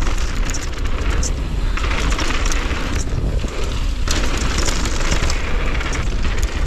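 Wind buffeting the action camera's microphone as a mountain bike runs fast down a dirt trail, with tyres rolling over loose dirt and the bike rattling and clicking. The noise shifts abruptly a few times.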